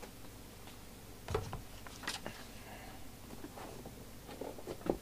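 Sheets of paper being handled and laid down on a workbench: a few light knocks and soft rustles, with a dull thump about a second and a half in.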